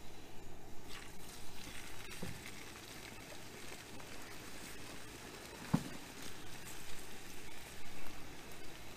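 Plastic bacon packet being peeled open and handled, with irregular crinkling and rustling. One sharp knock sounds a little under six seconds in.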